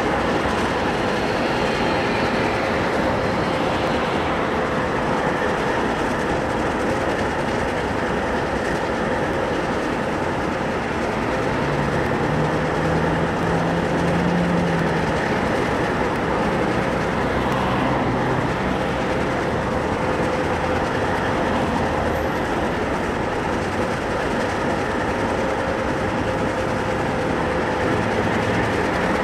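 Diesel locomotive running, a steady mechanical noise with a constant hum.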